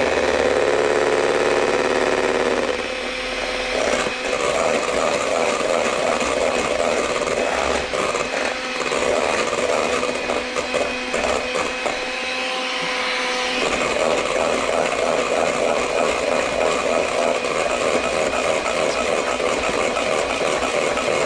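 Electric hand mixer running steadily, its beaters whirring through egg whites in a stainless steel bowl, whipping them toward a stiff meringue. The sound shifts about three seconds in and again about two-thirds of the way through.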